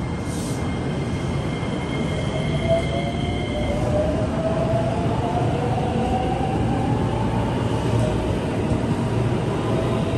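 Electric commuter train pulling out of a station and gathering speed: the motors whine, rising slowly in pitch, over a steady rumble of wheels on rail that grows louder.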